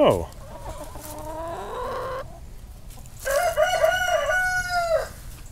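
Rooster crowing: one loud, long crow about three seconds in, lasting nearly two seconds, after a fainter call in the first two seconds.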